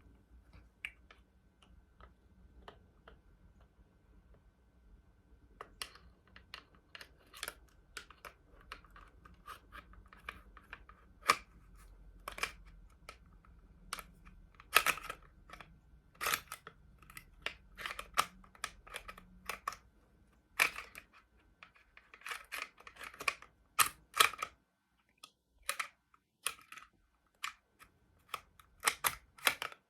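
Irregular sharp clicks and rattles of a Glock 21 Gen 5 pistol being put back together by hand, the slide being worked back onto the frame over the barrel and recoil spring. The clicks start about five seconds in and come in uneven clusters, a few much louder than the rest.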